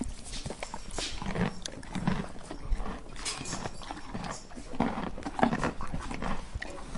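Gray squirrel chewing food held in its paws: irregular small crunching clicks.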